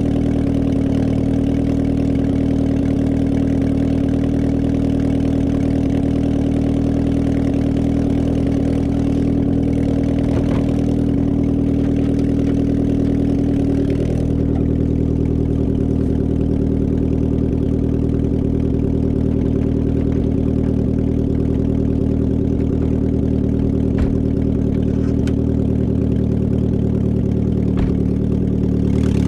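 An engine idling steadily, its tone shifting slightly about halfway through.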